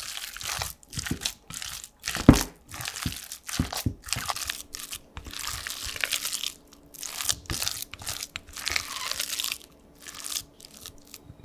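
Silicone spatula folding and mashing mayonnaise-dressed potato salad in a glass bowl: a run of irregular scraping, squashing strokes, with one sharper knock about two seconds in.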